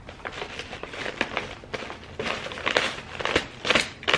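Plastic food packets and bags crinkling and rustling as they are handled and lifted out of a packed box, in irregular strokes.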